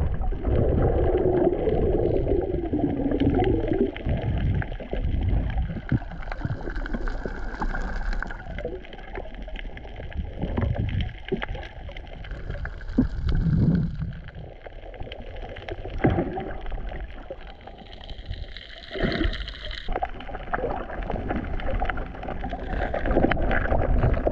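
Underwater sound picked up by a submerged camera: a muffled, shifting rush and gurgle of moving water, loudest in the first few seconds, with scattered sharp clicks.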